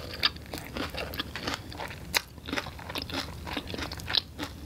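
Chewing a crispy fried hash brown: an irregular run of sharp crunches as the mouthful is chewed.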